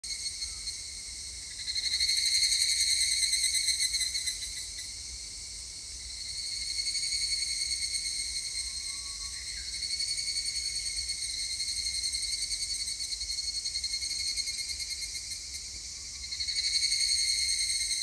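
Higurashi (evening cicada, Tanna japonensis) singing a high, rapidly pulsing trill in repeated phrases that swell and fade.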